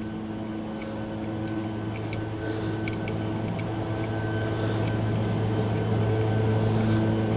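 Steady mechanical hum of a motor-driven machine, growing slowly louder, with a few faint light clicks over it.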